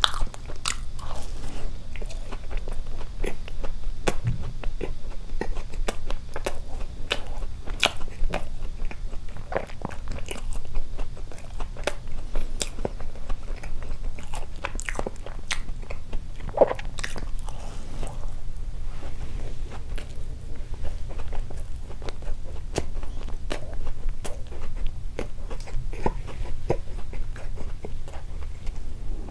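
Close-miked eating of a glazed doughnut: bites and chewing, with many small sharp crackles and mouth clicks.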